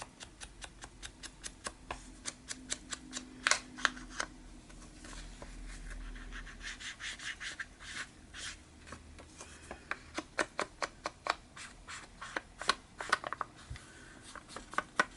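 Ink applicator dabbing and rubbing black distress ink onto the edges of paper: a quick run of short soft taps, several a second, coming faster in the second half.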